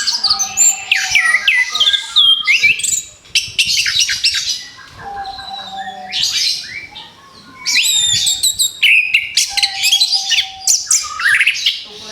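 Orange-headed thrush singing a fast, varied song of sharp falling whistles and chirps, in loud bursts broken by short lulls about three seconds in and from about five to seven seconds in.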